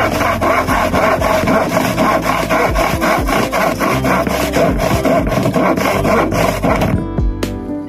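Long, old-style handsaw cutting through plywood in quick, even back-and-forth strokes. The sawing stops about seven seconds in.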